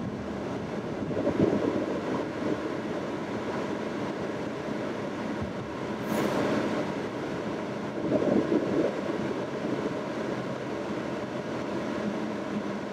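Steady road and tyre noise inside the cabin of a 2015 Ford Mustang EcoBoost on the move, with the air-conditioning blower running on high. It swells louder about a second in and again about eight seconds in.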